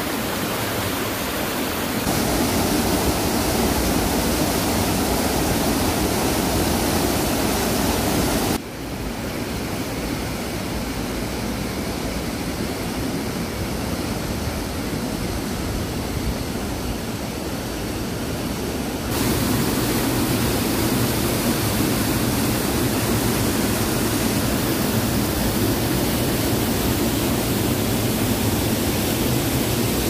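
Mountain stream rushing over rocks and small cascades, a steady loud rush of water. Its tone shifts abruptly about two, nine and nineteen seconds in, becoming thinner in the middle stretch and fuller again near the end.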